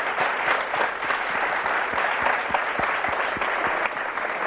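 Studio audience applauding: many hands clapping at once, holding at a steady level.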